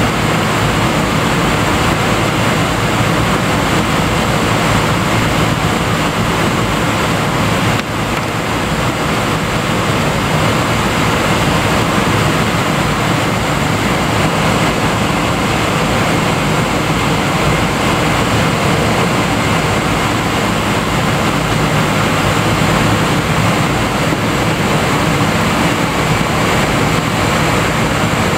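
Steady cabin noise of a Boeing 777-200ER taxiing, heard from a window seat beside the wing. It is the even rush of its Rolls-Royce Trent 892 turbofans at taxi power, with a faint steady high whine.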